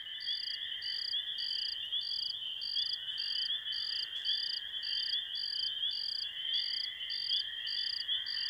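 Night ambience of crickets: high chirps in an even rhythm of about two a second over a steady insect trill.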